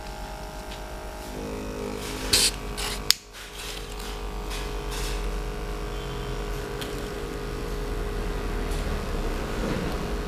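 Homemade model steam engine with a small piston cylinder and flywheel, running with a steady mechanical hum over a low rumble. A few clicks come near the start, the sharpest about three seconds in.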